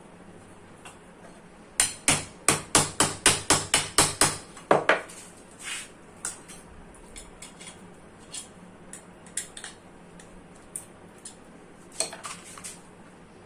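A quick run of about a dozen sharp metal knocks, roughly four a second, then scattered lighter taps and a short cluster of knocks near the end. The knocks come from tapping on the cooler motor's shaft and bush during a repair.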